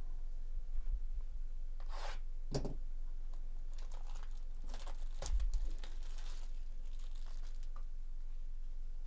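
Plastic shrink wrap being torn and crinkled off a sealed trading-card hobby box, in short bursts of tearing about two seconds in and again from about four to six and a half seconds in.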